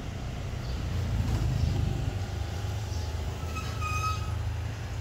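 Low, steady rumble of a motor vehicle, swelling about one to two seconds in, with a short high steady tone near four seconds in.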